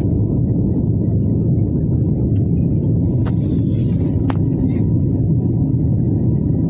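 Steady, loud cabin rumble of a jet airliner in its climb: engine and airflow noise heard from inside the cabin.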